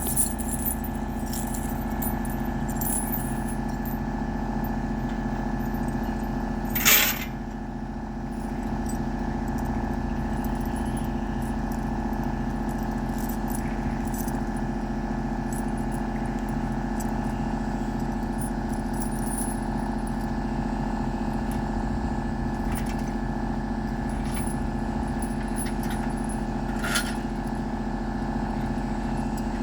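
An engine idling steadily at an even pitch, with no revving. A sharp knock sounds about seven seconds in, and a lighter click near the end.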